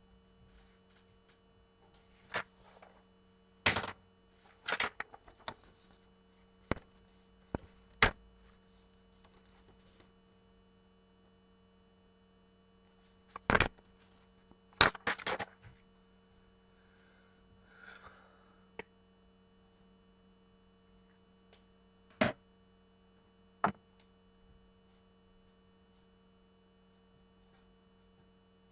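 A steady low electrical hum, with about a dozen sharp knocks and clicks at irregular times, bunched in the first half and a couple more later on.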